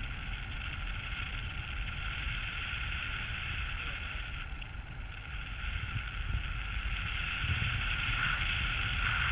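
Steady rush of airflow over a GoPro's microphone in tandem paraglider flight, a low rumble under a hiss, growing a little louder after the middle.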